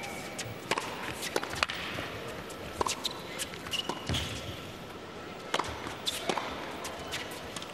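Tennis rally on an indoor hard court: a string of sharp racket strikes and ball bounces, irregularly spaced, with players' footsteps on the court.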